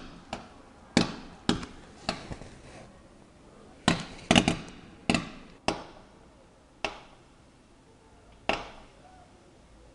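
Fireworks going off in the street: about a dozen sharp bangs at uneven intervals, each with a short echoing tail, bunched most closely around four to five seconds in and thinning out toward the end.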